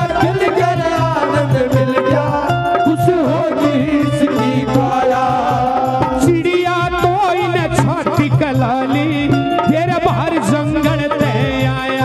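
Live Haryanvi devotional bhajan: a quick tabla-style hand-drum rhythm under a melody, with a man singing into a microphone.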